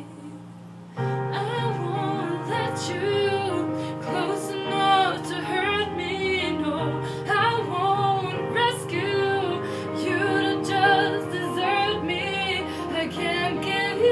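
A pop song: a woman sings wavering, held notes over sustained chords. The music drops low briefly and comes back in about a second in.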